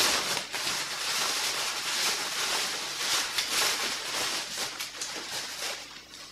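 White packaging wrap rustling and crinkling in the hands as it is pulled off a spare fly-reel spool. The rustle dies down near the end.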